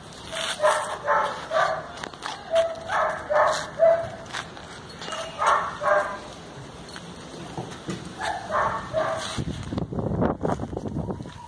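A dog barking in short, repeated barks in runs: a quick string of about a dozen in the first four seconds, a couple more around six seconds and a few near nine seconds. A burst of low muffled noise follows near the end.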